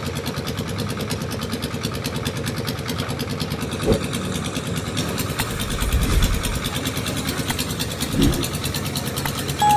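An engine running steadily at idle, with three low thumps a couple of seconds apart.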